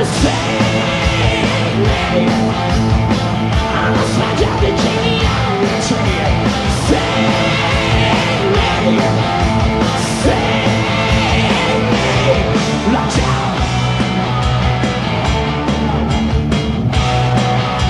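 Hard rock band playing live: distorted electric guitars through Marshall amplifiers, bass and a steady drum beat, with singing.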